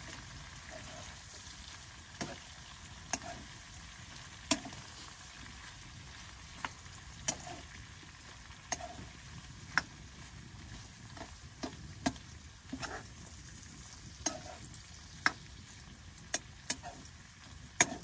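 Food frying in a pan with a steady sizzle, while a utensil stirs and clinks against the pan at irregular moments, about once a second.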